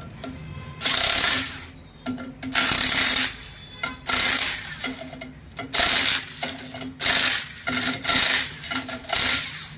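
Air impact wrench run in short bursts, about eight of them a second or so apart, over a steady low hum. These are the clutch cover bolts being run down onto the flywheel in turn, in a star pattern.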